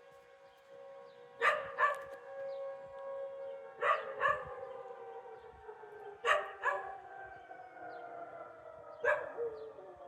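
Tornado warning siren sounding a steady wail that slowly falls in pitch, while a dog barks along, mostly in pairs of barks about every two and a half seconds.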